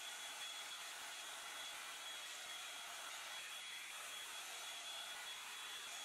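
Hot Tools Pro One Step Blowout hair dryer brush running: a steady rush of blown air with a thin, even high whine over it.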